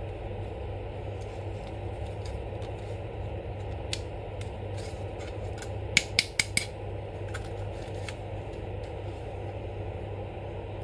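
A hard plastic Black Panther action figure is handled and posed by hand, with a few faint taps and a quick run of four sharp clicks about six seconds in as its legs are bent. A steady low hum runs underneath.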